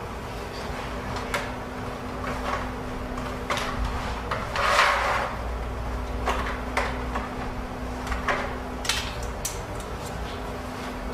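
Computer parts and tools being handled on a workbench: scattered light clicks and knocks, with a short rustling scrape about five seconds in, over a steady low electrical hum.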